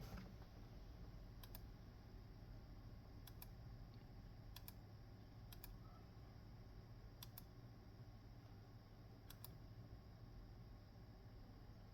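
Faint computer mouse clicks, single and in quick pairs, every second or two over a low steady room hum.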